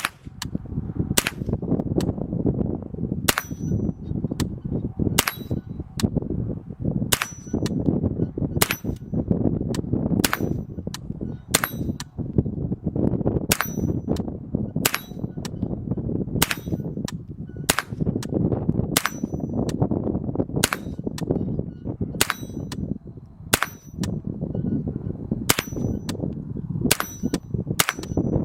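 A Chiappa M4-22 semi-automatic .22 LR rifle firing shot after shot, about one a second with some quicker pairs. Many shots are followed by a short high ring of a steel target being hit, over a steady low rumble of wind on the microphone.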